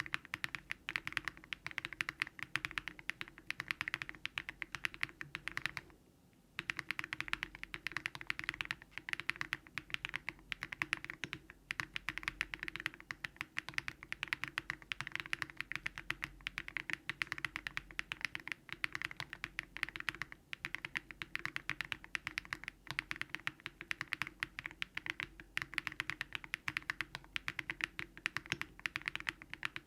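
Steady fast typing on a Daring Run Polygon-7 custom mechanical keyboard built with Keygeek LM switches, all foam and a polypropylene (PP) plate. The keystrokes pause briefly about six seconds in.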